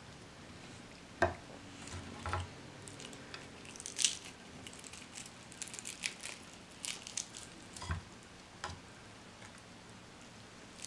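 Crispy fried chicken crackling and its meat squishing wetly as a piece is torn apart by hand, with a few sharper clicks among it.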